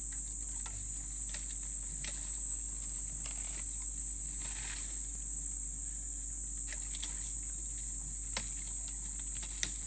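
A steady, high-pitched drone of insects, with a few sharp snaps and brief rustles of leaves as an African elephant breaks and strips branches from a tree while feeding.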